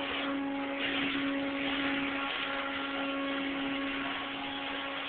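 A small electric motor running steadily: a constant hum under a noisy rush.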